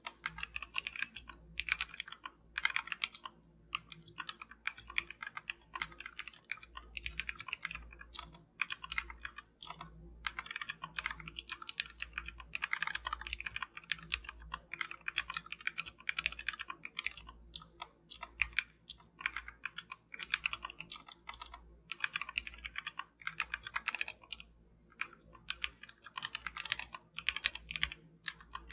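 Royal Kludge RK71 mechanical keyboard with XDA-profile keycaps being typed on fast: runs of rapid keystrokes broken by short pauses.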